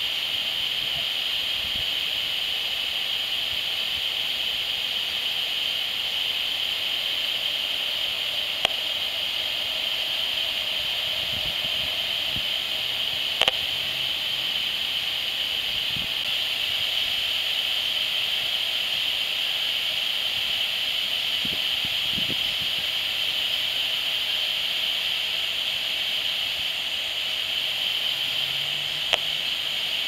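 Handheld HF35C RF analyser's audio output hissing steadily like radio static, with three short clicks, the last about a second before the end: each click is a pulse of microwave transmission from the smart meter, the last registering about 6,800 µW/m².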